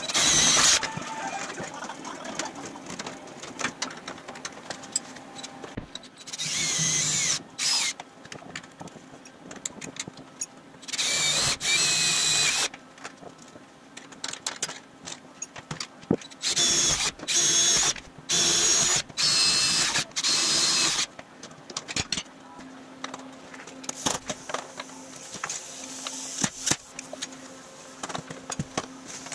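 Cordless drill boring rivet holes through an aluminum body panel. It runs in about seven short spurts of a second or two each, with clicks and knocks of hand work between.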